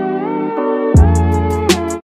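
Background music: held keyboard chords, joined about halfway through by a deep bass and a ticking beat. It cuts off abruptly at the end.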